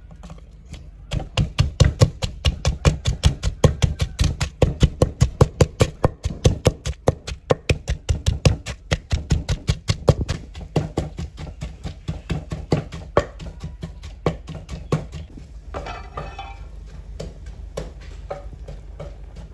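Wooden pestle pounding chillies, salt and garlic in a mortar to a paste, hard regular knocks about three a second, which grow softer and sparser after about 11 s.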